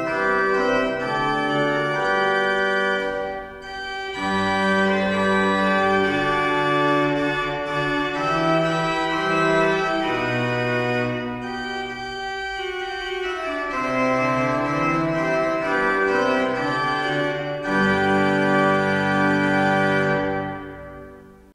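Church pipe organ playing sustained chords in phrases, with short breaks between them. The last chord is released near the end and dies away in the room's reverberation.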